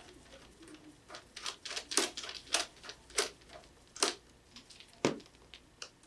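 Phillips screwdriver backing out the screw of an aluminium iMac's RAM access panel, a string of light clicks and taps about every half second to a second as the screw turns and the metal panel is handled.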